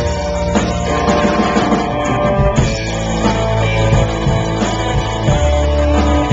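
Rock band playing live, with guitars and drums, captured through a small camcorder's built-in microphone.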